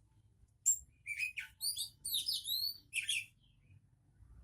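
A caged songbird singing a rapid run of chirps and sweeping whistled notes, starting just under a second in and stopping a little after three seconds.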